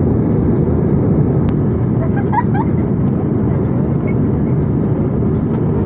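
Passenger airliner cabin noise in flight: a steady low rumble of engines and airflow.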